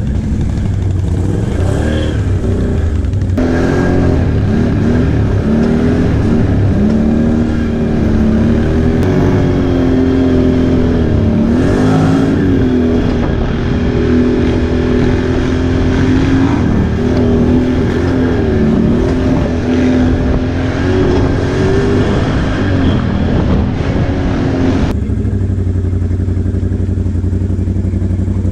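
Can-Am Outlander XMR ATV's V-twin engine running under throttle on a rough dirt trail, its revs rising and dipping with the throttle. Near the end it drops to a lower, steadier note as the machine slows.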